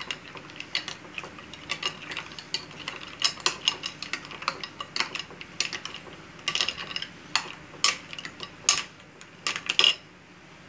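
A metal spoon stirring cacık (watered yogurt with ice cubes) in a glass bowl, with quick, irregular clinks of spoon and ice against the glass. The stirring stops near the end.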